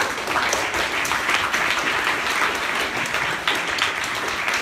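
Audience applauding, a dense mass of many hands clapping at once.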